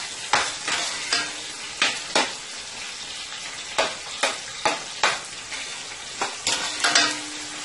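Chopped onion sizzling in hot olive oil in a large stainless-steel pot, stirred with a metal spoon that scrapes and clinks against the pot about a dozen times at uneven intervals.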